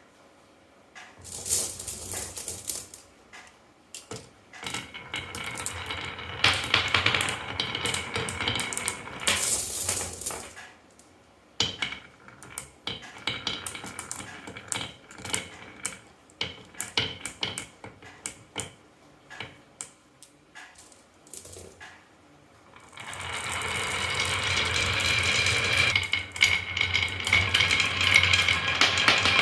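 Marbles clattering and clicking down a wooden marble run: dense rattling runs, then scattered single clicks, then a continuous clatter with some ringing tones in the last few seconds.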